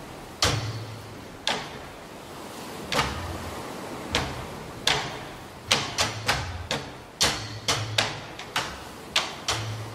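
A series of sharp thuds, each with a short low boom. They come a second or so apart at first, then quicker, about three a second, in the second half.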